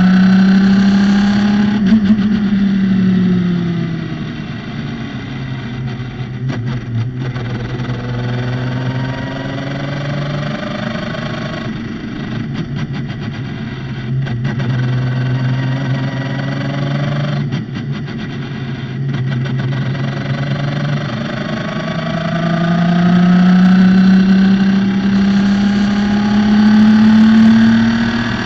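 Radical SR3 track car's motorcycle-derived four-cylinder engine at racing speed. The engine note drops over the first few seconds as the car slows, runs lower and steadier through the middle with a few short breaks, then climbs under hard acceleration in the last several seconds, where it is loudest.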